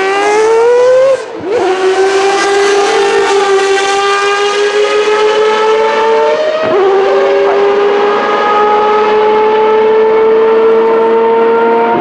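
Mazda 787B's four-rotor rotary engine at full throttle, its pitch climbing as the car accelerates, with an upshift about a second in and another about six and a half seconds in, the pitch dropping sharply at each before climbing again.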